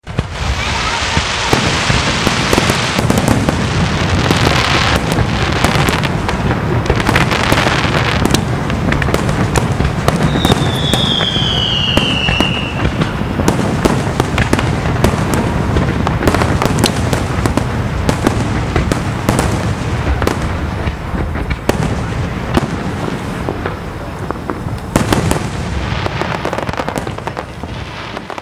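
Aerial fireworks display: a dense barrage of shell bursts and crackles over a continuous rumble, with a falling whistle about ten seconds in.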